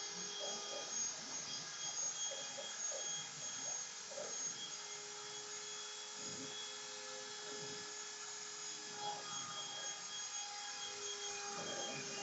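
CNC router running, with several steady whining motor tones that shift in pitch and drop in and out as the machine moves, over an uneven scratchy cutting noise.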